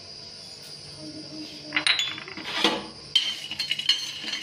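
Metal spatula scraping and stirring dry peanuts, cashews and coconut pieces in a metal kadhai while they dry-roast, the nuts clicking and rattling against the pan. The strokes start a little under two seconds in and come thickest near the end.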